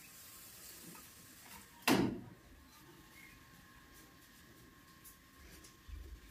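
A fridge's small freezer compartment door shut once: a single sharp knock about two seconds in. The rest is quiet room tone with a faint steady hum, and a few soft thumps near the end.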